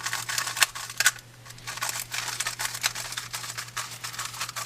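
X-Man Tornado V2 magnetic 3x3 speedcube being turned quickly, a fast run of plastic clicks and clacks as the layers snap into place, its magnets set to the strongest setting. There is a short lull about a second in before the turning picks up again.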